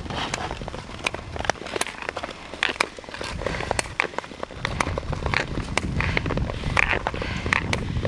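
Ice skate blades on natural river ice: many sharp, irregular clicks and scrapes from the strokes, with wind rumbling on the microphone from about halfway in.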